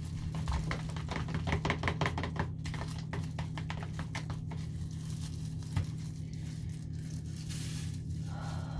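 Quick run of light clicks and taps from gloved hands working a plastic bowl of mixed hair dye, thinning out after a few seconds, over a steady low hum.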